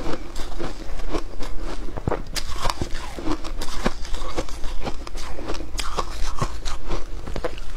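Close-miked crunching of shaved ice being chewed: a steady, irregular run of sharp crunches and crackles.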